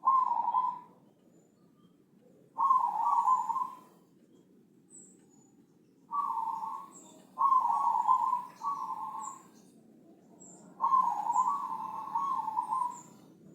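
Zebra dove (Javanese perkutut) cooing in a thick, full voice: a series of repeated low coo phrases, several in a row with short pauses between. Faint high chirps from other small birds sound in between.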